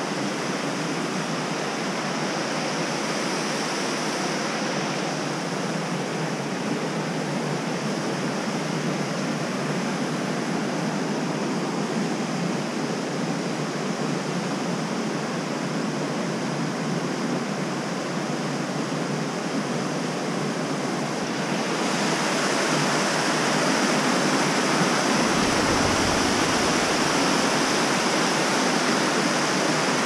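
Steady rushing of a river over rocks and rapids. It grows louder about two-thirds of the way through, and a low rumble joins it shortly after.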